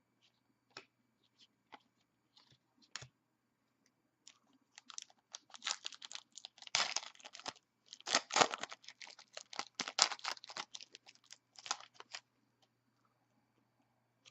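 Trading cards being handled and flicked through: a few scattered light clicks, then about eight seconds of rapid clicking and crinkling that stops about twelve seconds in.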